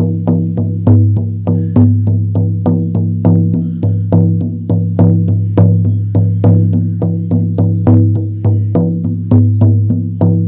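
18-inch buffalo-skin shamanic frame drum struck with a firm beater in a steady beat of about two to three strokes a second. Each stroke gives a sharp attack and a deep booming tone that rings on until the next.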